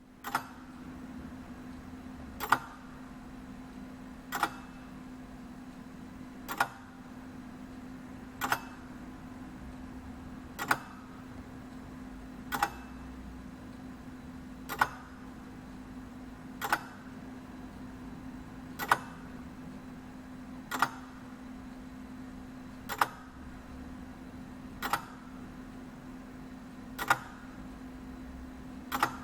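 Oversized Omega display model of a Swiss lever escapement ticking slowly, a sharp click about every two seconds as the pallet and escape wheel lock and release with each swing of the balance. A steady low hum runs underneath.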